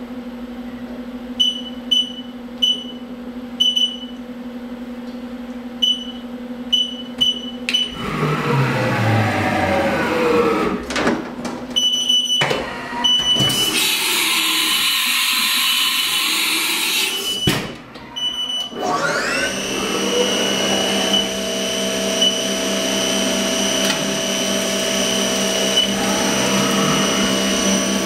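CNC toolroom mill working on an aluminium blank. First come a string of short high beeps as the spindle-mounted touch probe touches off the part. Then a tool change with gliding pitches and a burst of hissing about halfway through, and finally the spindle spinning up with a rising whine into a steady run.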